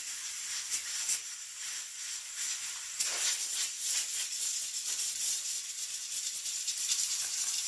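Compressed air from an air hose hissing as it blows dust out of a Briggs & Stratton mower engine's air filter. The hiss is uneven and fluttering, with a few sharp clicks, and grows stronger about three seconds in.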